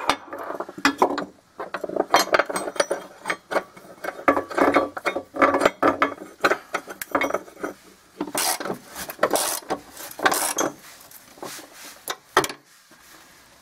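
Hand socket ratchet clicking in bursts of short strokes as a bolt is run in through a metal mounting bracket. The clicking dies away near the end.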